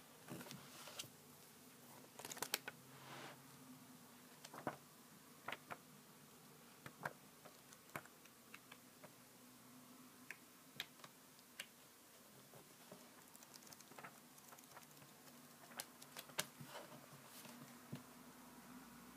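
Faint handling noise from a paper booklet being picked up and its pages turned: scattered soft clicks and a few short rustles at irregular moments, over a faint steady low hum.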